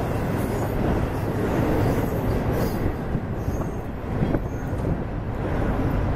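Freight cars rolling across a steel railroad bridge: a steady heavy rumble of wheels on rail with knocking clatter, and a few brief high wheel squeals.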